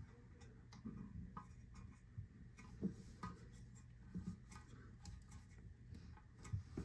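Faint scattered clicks and light scraping as a porcelain toilet is pressed down and rocked on a wooden shim on a tile floor.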